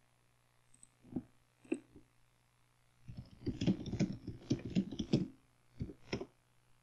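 Computer keyboard keys clicking. There are two single keystrokes early, then a quick run of typing starting about three seconds in, and two last clicks near the end, over a faint steady low hum.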